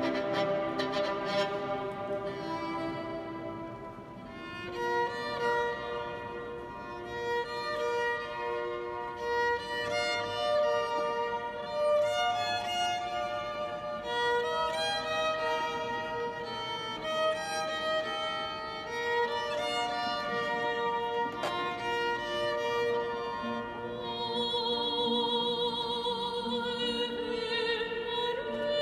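A violin plays a slow melody of held notes with vibrato, with a guitar accompanying it.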